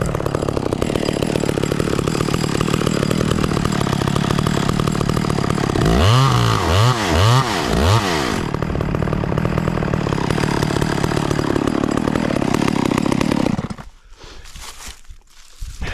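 Echo 670 two-stroke chainsaw running steadily, its throttle blipped four times in quick succession midway, then running on before the engine cuts off suddenly near the end, leaving a few faint knocks.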